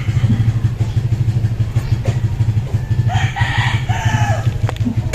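An engine runs steadily with a low pulsing drone throughout. About three seconds in, a rooster crows once.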